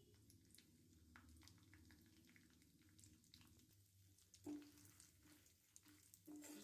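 Faint scraping and light clicks of a metal spatula stirring fried groundnuts and roasted gram in an iron kadai, over a low steady hum, with a brief louder sound about four and a half seconds in.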